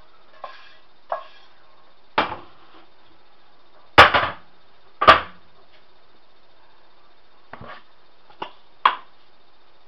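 Frying pan and other cookware being handled and set down on a stovetop: a string of sharp knocks and clanks, the loudest two about four and five seconds in, with lighter knocks near the end.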